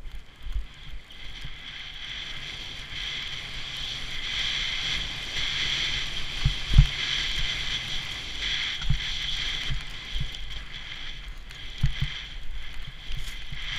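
Skis hissing and scraping over snow on a downhill run, with wind on the microphone and a few short low thumps, the loudest about seven seconds in.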